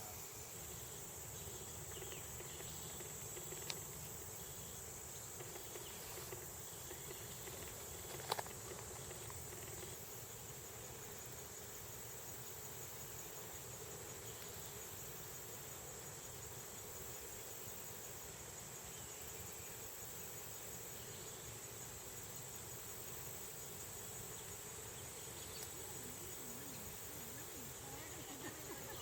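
Steady, high-pitched chorus of crickets or katydids, with two short clicks about 4 and 8 seconds in.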